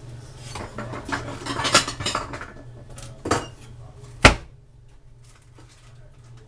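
Kitchen clatter of dishes and utensils knocking together for a couple of seconds, then a knock and a single sharp, loud knock about four seconds in.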